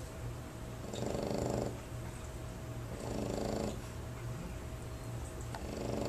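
French bulldog snoring in its sleep: a buzzing snore about every two and a half seconds, each under a second long, the third starting near the end.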